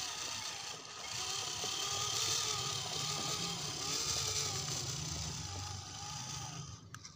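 Electric motor and gearbox of a 1/10-scale RC rock crawler whining, the pitch rising and falling with the throttle as it climbs over a brick; it drops away near the end.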